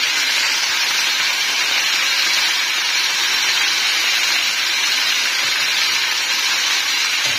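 Onions and spices sizzling steadily in hot oil in a pan, being fried down as the base for a shrimp curry.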